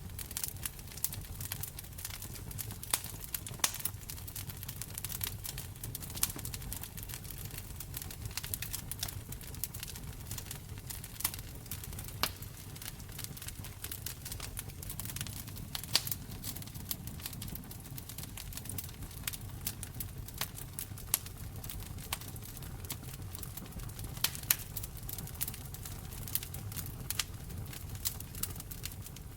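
Wood fire in a fireplace crackling, with frequent irregular sharp pops and snaps over a low steady rumble.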